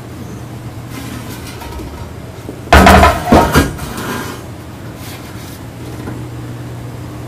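Heavy steel weldment handled on a steel welding table: one loud clank with a ringing tail about three seconds in, followed quickly by two smaller knocks. The shop's fume extraction fan hums steadily underneath.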